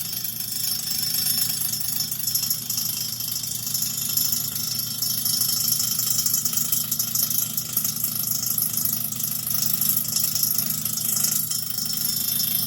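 Toshiba air fryer microwave oven running in convection mode: a steady low hum under a loud, high-pitched hiss and whine, a noise its owner presents as a problem.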